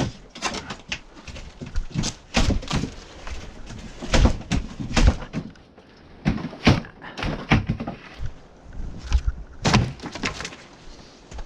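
Irregular knocks, thuds and clatters of junk and debris being moved and handled inside an abandoned RV, some hits sharp and some deeper and heavier.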